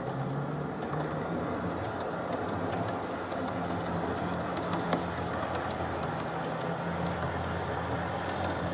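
Model electric train running along the track: a steady rumble of wheels on rail with the low hum of its motor, wavering slightly in pitch.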